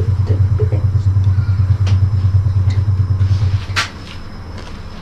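A loud, steady low rumble like a motor running, which dies away about three and a half seconds in, followed by a single sharp click.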